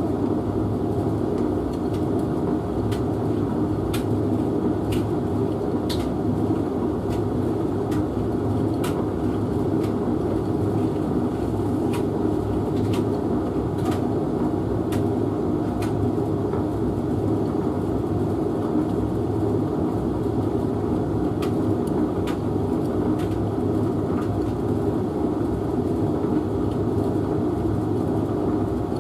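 Hotpoint HF8B593G washing machine and Hoover VHV68C tumble dryer running together: a steady drum and motor hum with scattered light clicks.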